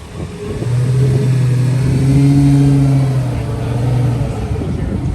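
Sports car engine running loudly at steady revs, a low even note that comes up about half a second in, holds and swells through the middle, then eases off near the end.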